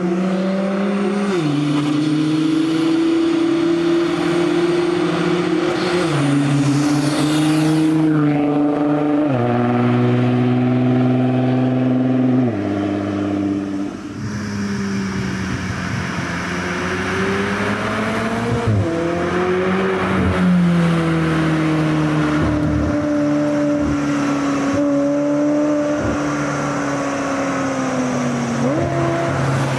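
Nissan GT-R R35's twin-turbo V6 accelerating away through several upshifts, its pitch climbing and then dropping at each shift. Then a McLaren 765LT's twin-turbo V8 approaches and passes, rising and falling in pitch.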